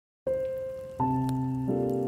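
Soft piano music opening: a single held note, then a fuller chord with a low bass note about a second in, and another note joining near the end.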